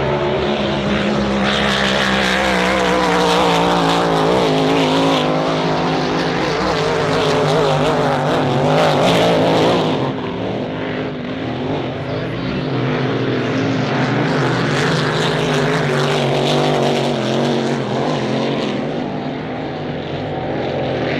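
Supercharged V8 racing hydroplane running flat out on the water: a loud, steady engine drone with a hissing edge that drops away about ten seconds in.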